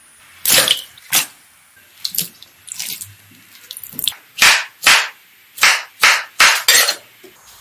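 Strawberries being washed in a glass bowl of water and sliced with a knife on a cutting board: about ten short, crisp swishing and cutting strokes, the loudest in the second half.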